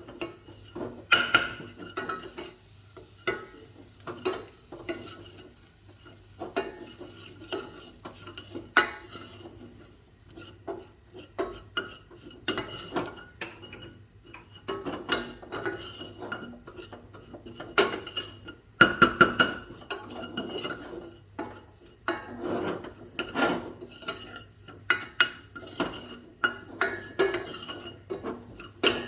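A spoon scraping and clinking against a pan, stirring gram flour (besan) as it roasts in ghee over a low flame: an irregular run of scrapes and taps, with a louder cluster about two-thirds of the way through.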